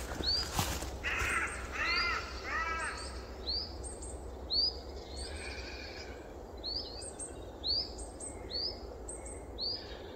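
Morning chorus: a crow caws three times in the first few seconds, while a small songbird repeats a short, high call every second or so.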